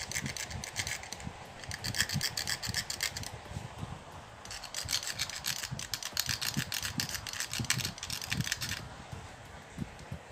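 Utility-knife blade scraping the enamel insulation off the copper magnet wire of a toroidal transformer's secondary winding, baring the copper for a centre-tap connection. It is a run of quick, repeated scratchy strokes that pauses a little over three seconds in, resumes, and thins out about nine seconds in.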